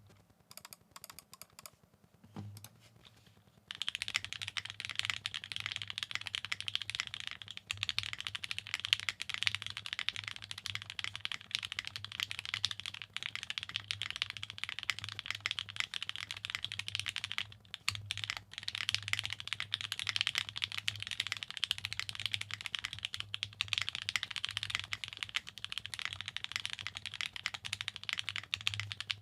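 Fast typing on a plateless 7v mechanical keyboard with OP Black switches and GMK Noel keycaps: a few scattered keystrokes, then a dense, continuous run of key clacks from about four seconds in, broken by a short pause past the middle.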